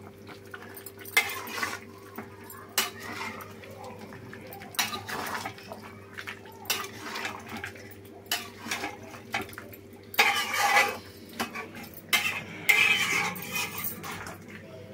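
Metal spatula scraping and clanking against a metal kadhai as chicken pieces in a wet spice masala are stirred and mixed, in irregular strokes that come thickest near the end.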